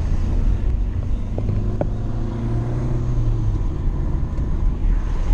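Car running along the road: a steady low engine and road rumble, with the engine note rising a little for a second or so in the middle.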